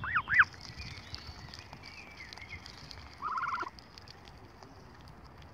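Canada goose gosling peeping: three loud whistled peeps that rise and fall, then a short rapid trill about three seconds in.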